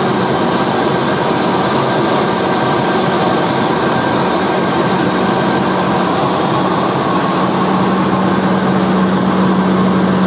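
Cirrus SR20 single-engine piston airplane in flight, heard inside the cabin: the engine, propeller and airflow make a loud, steady drone.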